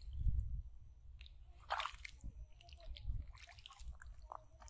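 Wet squishing as a soft white paste is worked in muddy hands and pressed onto plastic bottles, with a few short, sharper handling noises, the loudest nearly two seconds in, over a low rumble.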